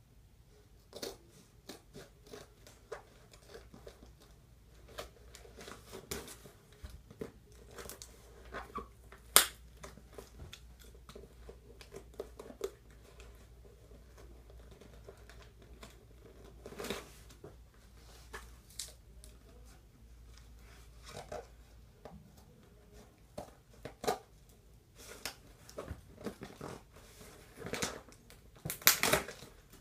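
Toy packaging being handled and opened: scattered crinkling, tearing and clicking of plastic and cardboard, with one sharp click about nine seconds in and a dense run of crinkling near the end.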